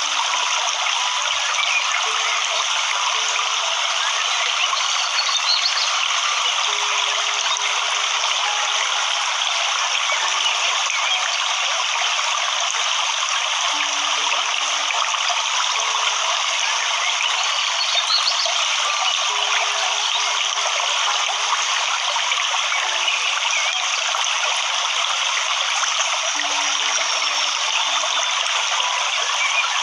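Rushing waterfall water, a steady even hiss with no breaks.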